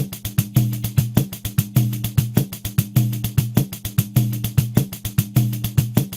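Pandeiro playing a steady groove at 100 BPM: quick, even jingle strokes with a recurring low drum tone.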